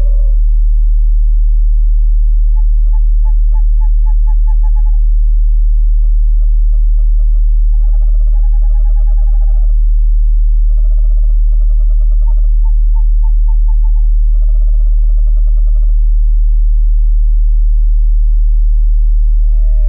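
Owl calls: about six short, rapid trills, each pitched between two notes, repeated with short pauses. They sit over a loud steady deep tone that runs underneath throughout.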